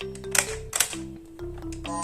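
Background music: a simple stepping melody over a bass line, with a couple of sharp percussion hits.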